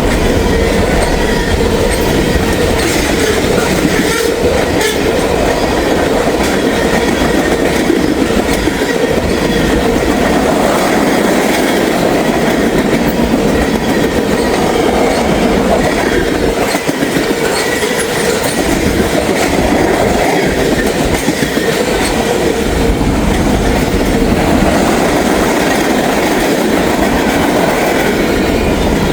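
Norfolk Southern freight train passing close at speed: a loud, steady rush and rumble of freight cars rolling by, with scattered clacks of steel wheels over the rails and a faint steady whine.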